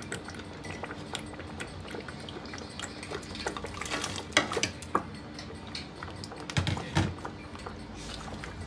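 Fried chicken pieces tipped from a china bowl into a pot of tomato stew, with clinks and wet splashes about halfway through and two heavier knocks a couple of seconds later. Light clicks of spoon and pot run throughout.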